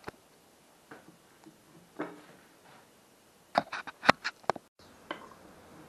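Scattered light knocks and clicks of a wooden plane body and hand tools being handled and set down on a wooden workbench, with a quick cluster of sharper knocks about three and a half seconds in.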